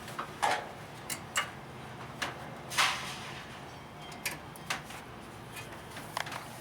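Scattered metallic clicks and short scrapes of new brake pads and their clips being fitted into a disc-brake caliper bracket, two of the scrapes a little longer, over a faint steady low hum.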